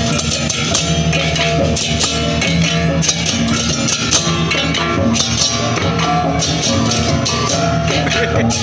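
Balinese baleganjur gamelan playing in a marching procession: drums and rapid clashing cymbals over steady ringing gong tones.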